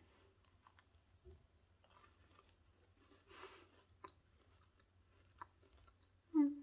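Faint crunching and clicking of someone chewing a crunchy homemade butter cookie, with a soft noisy burst about three and a half seconds in and a short hummed "mm" near the end.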